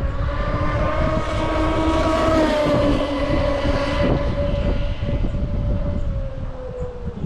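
Electric RC car's motor and drivetrain whining at speed on a timed speed run: a steady high whine that climbs slightly about two seconds in, then sags in pitch near the end, over a loud low rumble.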